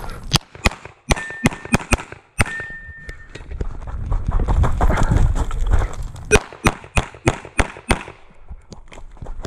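Rapid shots from a 9mm Glock pistol. About seven shots come in the first two and a half seconds, then a gap of about three seconds with only movement noise, then another fast string of about eight shots.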